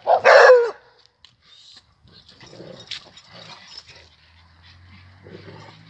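Dogs in rough play: one loud yelp that falls in pitch right at the start, then quieter, scattered dog noises.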